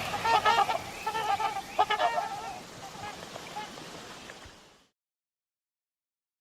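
Film sound effect of an Ichthyornis, a prehistoric seabird, calling: a quick run of short honking squawks that bend in pitch, dying away with a fading hiss and then cutting to silence about five seconds in.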